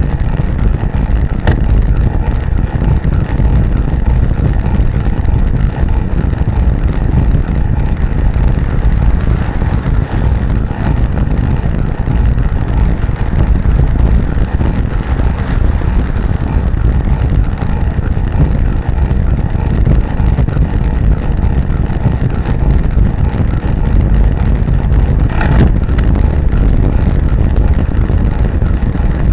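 Steady, loud wind rush on the microphone of a camera mounted on a recumbent bicycle riding fast on a road: an even low rumble.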